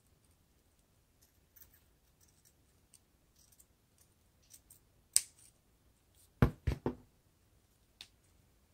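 Scissors snipping a plastic drinking straw into thin strips: a few faint snips, then one sharp snip about five seconds in. About a second later come three quick, loud knocks, followed by one more click near the end.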